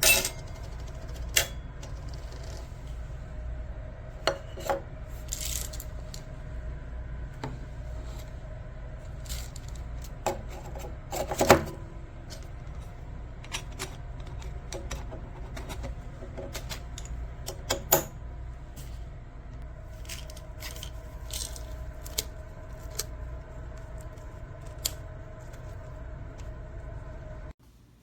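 Burr coffee grinder motor running with a steady hum, with hard clicks and rattles throughout, and stopping abruptly near the end.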